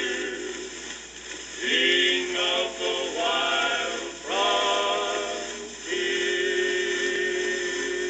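Closing bars of a sung record played through the built-in speaker of a vintage RCA three-speed record player with a mono tube amplifier. Voices hold a series of long sung chords, a new one coming in every couple of seconds.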